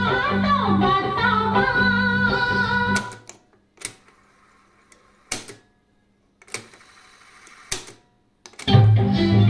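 Music with singing played back from a Sansui SC-737 cassette deck cuts off about three seconds in. Several sharp clunks of its piano-key transport buttons follow, spaced about a second apart. Music with guitar starts again near the end.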